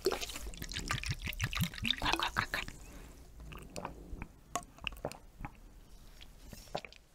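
Makgeolli poured into a metal bowl, splashing and gurgling with a pitch that rises as it fills. After about three seconds comes quieter sipping and swallowing from the bowl.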